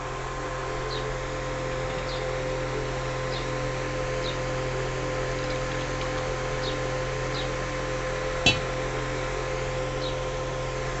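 Steady hum with faint high chirps about once a second. About eight and a half seconds in comes a single clink of a steel tumbler set down on a concrete floor.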